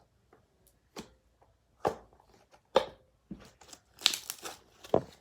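Homemade slime being squished and stretched by hand: a series of separate sticky clicks and crackles, about one a second, bunching together near the end.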